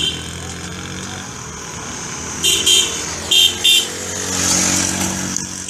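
A motor vehicle engine running steadily, with four short horn beeps: two close together about halfway through and two more a moment later.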